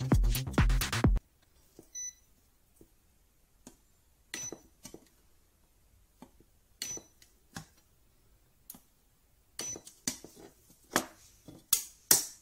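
Background music with a beat stops about a second in. Then a cheap DIY battery spot welder fires pulses through its pen probes into 0.4 mm strip: a dozen or so sharp snaps, spaced out at first and coming faster near the end. A few of them come with a short high beep.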